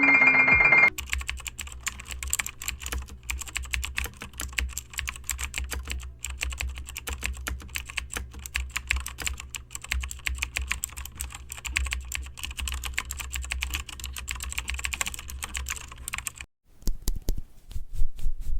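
Typing on a computer keyboard: quick, uneven keystrokes that run for about fifteen seconds over a low steady hum, stop briefly, then a few louder key clicks near the end.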